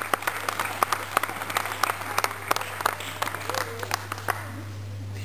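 Audience applauding, the clapping thinning out and dying away about four seconds in, over a steady low hum.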